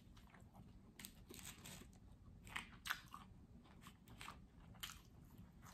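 Faint chewing of a mouthful of vegan chicken tender taco, with soft crunches scattered through it.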